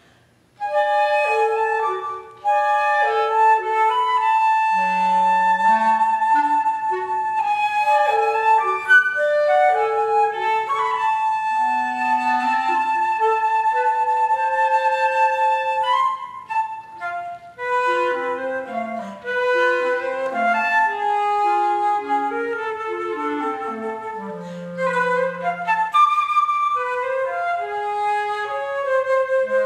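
Flute and B-flat clarinet playing a contemporary classical duet together. The music starts about half a second in, with many short, quickly changing notes; the clarinet dips into its low register now and then under the flute.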